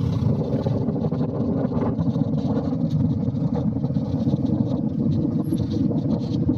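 Motorcycle engine running steadily while riding, with wind noise and road rumble from cobblestones on the bike-mounted camera's microphone.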